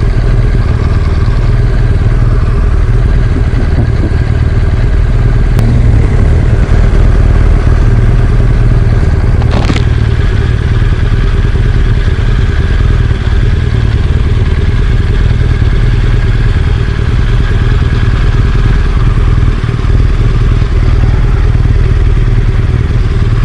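BMW R1200GS Adventure's water-cooled boxer-twin engine running while riding, with a loud, steady low rumble. A single sharp click about ten seconds in.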